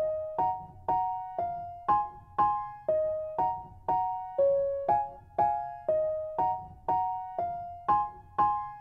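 Gentle background music on a piano-like keyboard: a simple melody of struck, fading notes at an even pace of about two a second.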